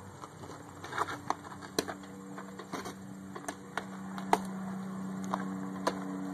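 Scattered light clicks and taps over a low steady hum, with one sharper crack about four seconds in as the pitched baseball hits the catcher's mitt.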